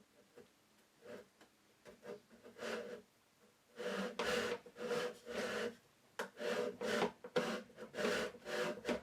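Hand saw cutting through the wooden end of a box held in a vise: a few light strokes, then from about four seconds in steady back-and-forth strokes at about two a second, following an already-established kerf.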